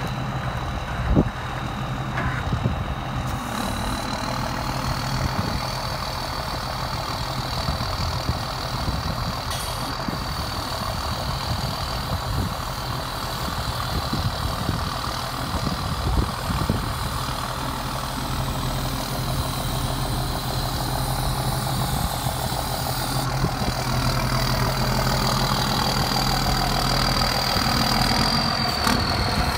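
Ford service truck's engine idling steadily while its hydraulic boom crane raises and swings the boom. A thin, steady high whine runs throughout; it rises slightly in pitch a few seconds in and drops back near the end, and there are a few light knocks.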